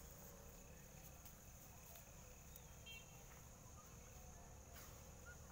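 Near silence with a faint, steady, high insect drone, and a brief soft rustle near the end.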